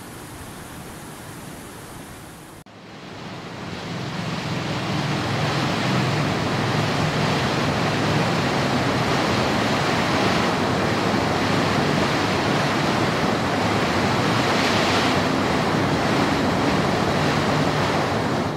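Rushing water in a rocky river, then after a sudden break about two and a half seconds in, the louder steady rush of white-water rapids cascading over rock, fading in over a few seconds.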